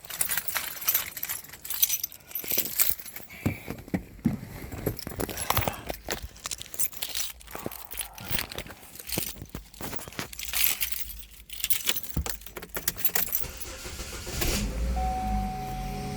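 Metal clinking, jangling and rattling in irregular clatters, from hardware and wiring being handled while an old car-audio speaker setup is pulled out of a car. Near the end a low steady hum with one held tone starts.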